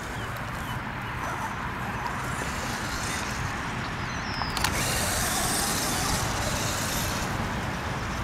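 Electric RC monster truck driving across grass and dirt, its motor and tyres making a steady noise under wind rumble on the microphone, with a sharp click about four and a half seconds in.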